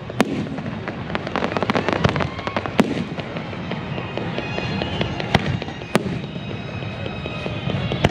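Fireworks show: aerial shells bursting with single sharp bangs every second or two, and a rapid run of crackling about one to two and a half seconds in.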